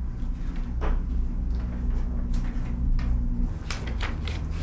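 A small paper booklet being handled and its pages turned, giving a few soft rustles and clicks over a steady low hum.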